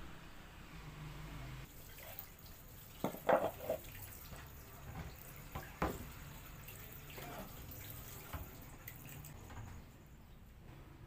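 Water spurting from a small PVC outlet pipe at the base of an improvised no-electricity drum pump and splashing onto concrete, a steady hiss. A few sharp knocks come about three seconds in and again near six seconds.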